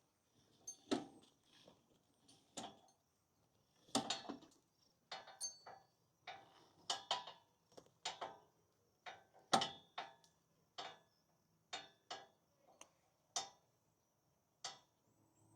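Metal hand tools and mower parts clinking and clanking during blade work: separate sharp metallic clicks, some ringing briefly, coming irregularly about once or twice a second.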